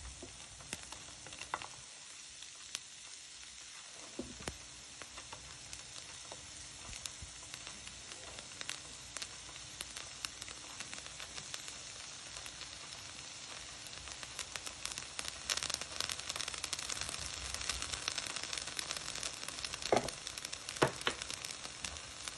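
Chopped red onion, red pepper and dill sizzling and crackling in a hot frying pan, the sizzle growing louder about two-thirds of the way through. Two sharp taps sound near the end.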